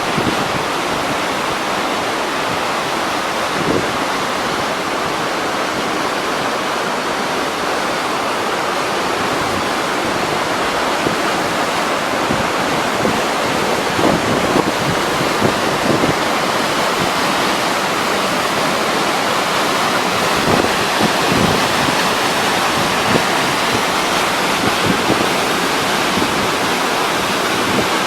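Waterfall pouring with a steady rush of falling water. A few short gusts of wind hit the microphone in the second half.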